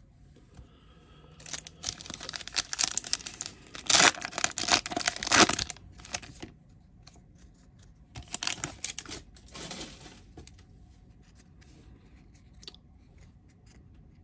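A foil MetaZoo Seance booster pack is torn open and its wrapper crinkled, in a run of ripping sounds that is loudest about four and five seconds in. Softer crinkles of the wrapper follow a few seconds later.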